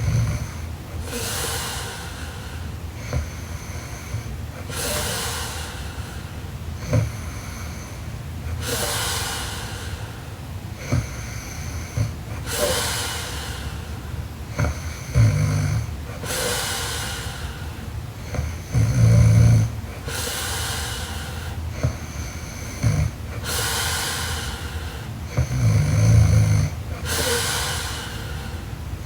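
A sleeping woman snoring: slow, regular breaths about every four seconds, mostly airy and hissing, with three deeper, louder buzzing snores in the second half.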